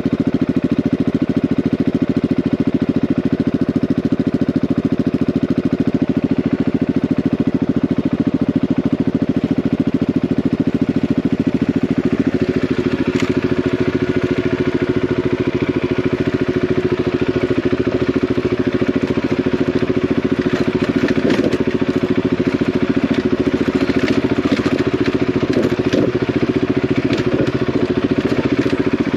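Single-cylinder enduro motorcycle engine running at a fairly steady speed while riding a rough track, with scattered short knocks and ticks in the second half.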